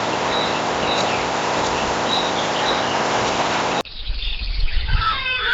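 A few faint, short bird chirps over a steady, loud hiss. About four seconds in, this cuts off abruptly to a different recording, in which louder bird calls that rise and fall in pitch come in over a low rumble.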